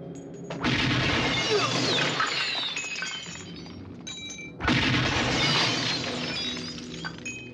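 Two loud crashes of shattering glass, about four seconds apart, each followed by a spill of falling shards that dies away over a couple of seconds.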